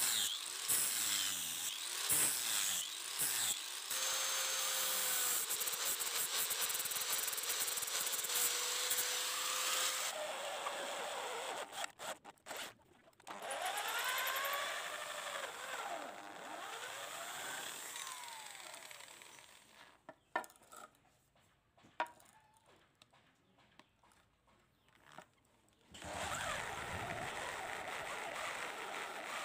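Power tool grinding metal, running in several stretches with its whine gliding up and down, broken by short gaps and a quieter stretch about two-thirds of the way through.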